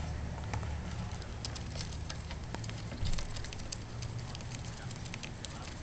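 A hamster gnawing at a strip of magazine paper: rapid small crackling clicks of teeth tearing paper, over a low steady hum, with one dull thump about three seconds in.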